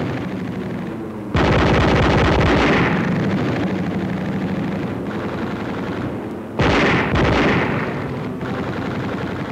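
Machine-gun fire over a droning aircraft engine on an old wartime film soundtrack. A long volley starts suddenly about a second and a half in and slowly fades, and a second volley breaks in about two-thirds of the way through.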